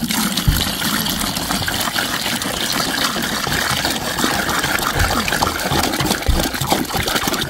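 Water pouring steadily from a large plastic water can into a plastic bucket, splashing into the water collecting at the bottom as the bucket fills.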